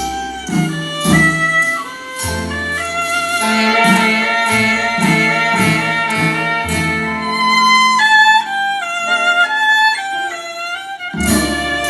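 Recorded music playing from a CD through loudspeakers: an instrumental passage with a melody line over bass notes and a steady beat, with no singing.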